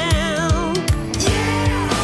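Background music: a rock-style song with a steady drum beat and a wavering melody line over it.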